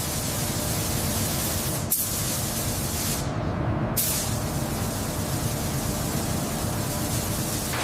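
Steady hissing spray-like noise over a low mechanical hum, with a sharper high hiss coming in about two seconds in and again about four seconds in.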